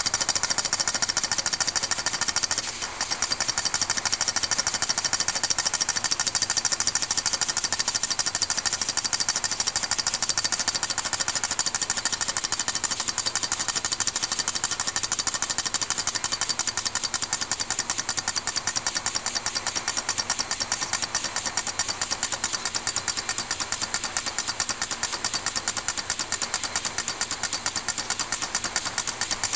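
Small brass model steam engine running on compressed air, its piston exhausting in a fast, even clatter with a brief dip about three seconds in.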